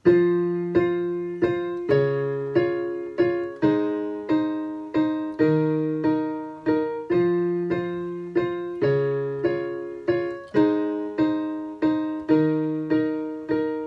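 Piano playing a slow, steady pattern of chords, one struck about every 0.6 seconds over an alternating bass note.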